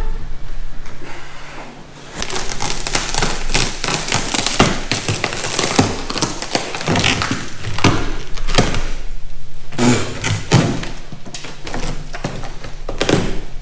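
Power tool cutting through the boat's fiberglass, a dense rasping noise broken by many irregular knocks and thumps, with a short lull about two seconds in.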